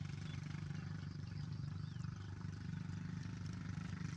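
An engine running steadily with a low, even hum, and faint bird chirps over it.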